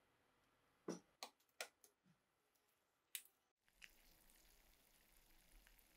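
Mostly near silence, with a handful of short, sharp clicks in the first half. Then a faint, steady fizz of bubbles from the electrolysis bath de-rusting the corroded rifle receiver in salt water.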